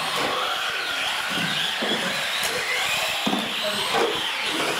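Several radio-controlled UTV racers' electric motors and gearing whining together, their pitches rising and falling as the trucks speed up and slow down around the track.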